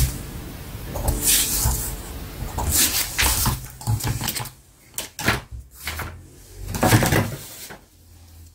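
Pen strokes scratching across paper: a run of short scratchy strokes of uneven length, the longer ones in the first half and another near the end.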